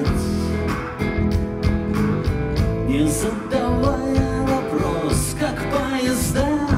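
Rock band playing live: electric guitars, bass guitar and drums, with cymbal crashes every second or so and a man singing.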